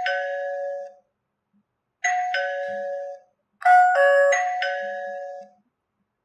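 Electronic two-tone doorbell chime, a high note then a lower one, rung three times about two seconds apart as the wireless video doorbell's call button is pressed.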